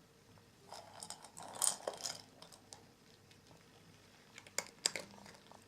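A cat toy being batted and knocked about: a burst of rustling and clattering, then two sharp clicks near the end.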